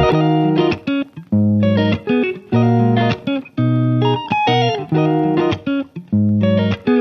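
Instrumental music led by plucked guitar over bass notes, played in short phrases with brief pauses between them.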